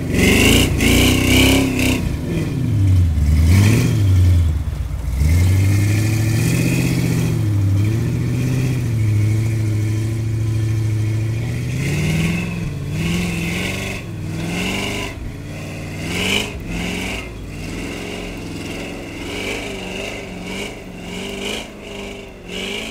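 Lifted pickup truck's engine revving up and down under load on a snowy hill climb, its pitch rising and falling repeatedly with a steadier stretch in the middle. It grows fainter as the truck pulls away.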